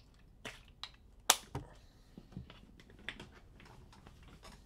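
Typing on a computer keyboard: a few irregular key clicks, with one sharper click about a second in.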